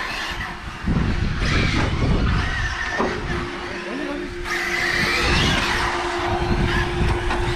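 Electric RC car's motor whining, its pitch rising and falling as the car speeds up and slows, over a low rumble.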